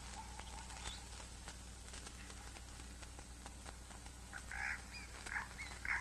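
A few short animal calls in the last second and a half, over a faint steady low hum with scattered light ticks.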